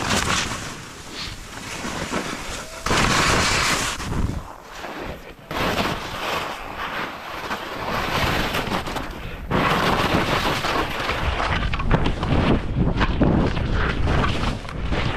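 Wind buffeting the microphone of a skier's head-mounted camera during a fast downhill run, mixed with the hiss of skis sliding through snow. The noise surges loudly in gusts several times.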